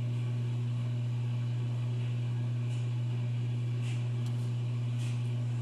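A steady low electrical hum fills the room, even and unchanging, with a few faint soft ticks.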